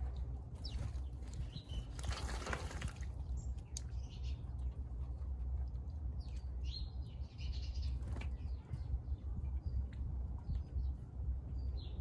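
Water splashing in a birdbath as mourning doves bathe, with a longer splash a couple of seconds in and a shorter one around eight seconds. Scattered short, high bird chirps sound over a steady low rumble.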